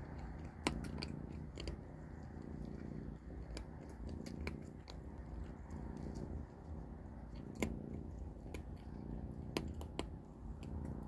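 Kittens chewing dry kibble: sharp, irregular crunches, about ten in all, over a low steady rumble.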